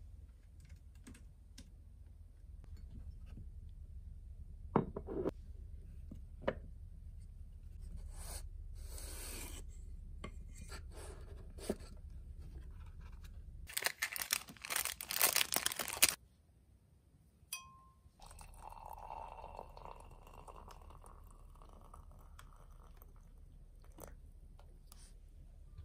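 Close-up handling of paper tea-bag packets in a wooden box, with scattered light taps and clicks. About two-thirds of the way through comes a couple of seconds of crinkly tearing as a packet is opened, then a soft hiss, over a faint steady low hum.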